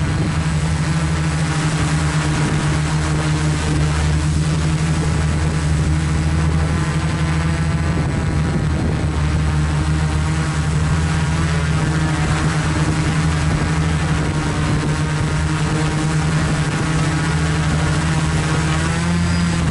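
FPV quadcopter's motors and propellers humming steadily in a hover, heard up close from the drone's own camera. Near the very end the pitch rises a little.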